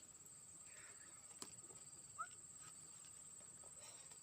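Quiet outdoor ambience: a steady high-pitched insect trill, with a single click about one and a half seconds in and a short rising chirp about two seconds in.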